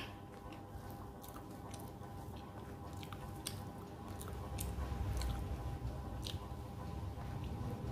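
Close-up eating sounds of a person chewing rice and fish curry, with many small wet mouth clicks. Fingers squish and mix rice on a plate.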